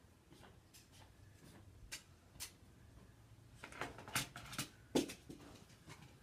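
Scattered faint knocks and clicks in a small room, sparse at first, then a busier cluster a little past halfway with the sharpest knock about five seconds in.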